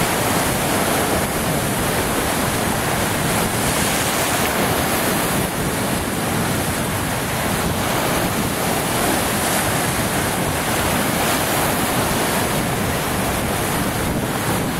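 Lake Superior waves breaking and washing over a rocky shoreline in a steady rush of surf, with wind buffeting the microphone.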